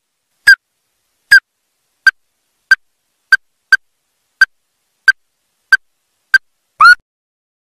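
Ruddy-breasted crake calling: a series of about eleven short, sharp, evenly spaced notes, roughly one every two-thirds of a second.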